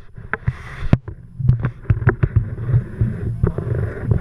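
Low rumble aboard a deep-sea fishing boat with wind on the microphone, broken by many irregular sharp knocks and clicks.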